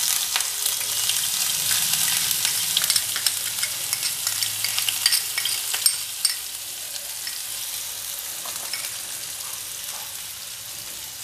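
Chopped onions sizzling in hot oil in a frying pan, with small crackles. The sizzle is loudest just after the onions go in and dies down gradually as they settle in the oil.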